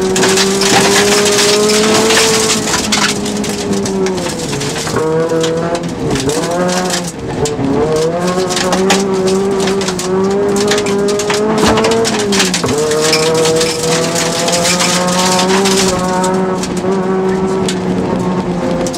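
Rally car engine heard inside the cabin, held at high revs on a gravel stage. The note drops and climbs back up about four to seven seconds in and again near twelve seconds, with loose stones clattering against the underbody throughout.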